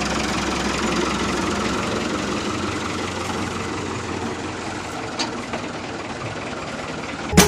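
A small motor running steadily with a noisy, rattly sound that eases slightly in loudness, then cuts off abruptly near the end.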